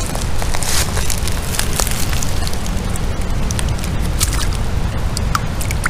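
Crackling and snapping of twigs and leaf litter close to the microphone, many small cracks over a steady low rumble.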